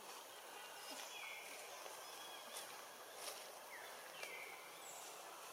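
Faint, short high-pitched animal chirps repeating about every second and a half, with a few sharp clicks, over a steady outdoor hiss.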